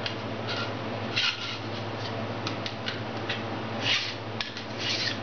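Bar file scraping along the steel rail of a chainsaw bar in a few rasping strokes, with light clicks between them: the file is cutting off the burr on the bar rail.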